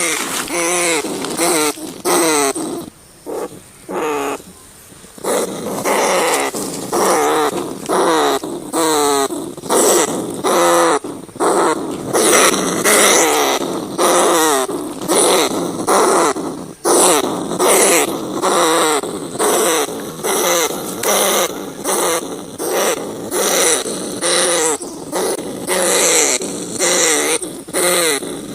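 Rats squealing over and over in short, wavering, pitched cries that follow one another almost without pause, with a quieter stretch a few seconds in.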